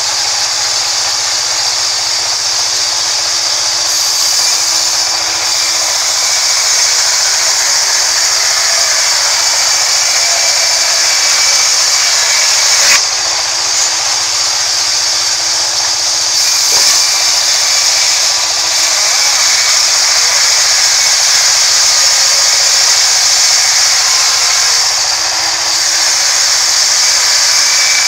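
Sawmill band saw running and ripping through a large rain tree log, a steady loud hiss of blade in wood over a faint motor hum. Two short knocks come about halfway through.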